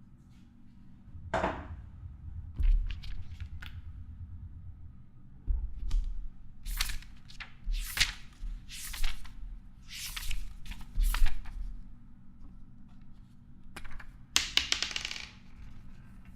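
Hand-made foley sounds: a run of short, sharp scraping swishes, about one a second, with scattered clicks and low thumps, then a longer rustle near the end.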